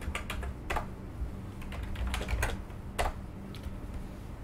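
Typing on a computer keyboard: irregular clicking keystrokes over a faint steady hum.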